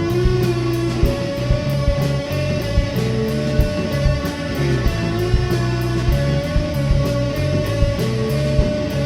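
Psychedelic rock band playing an instrumental passage: electric guitar over bass and drums, with long held notes and a steady drum beat.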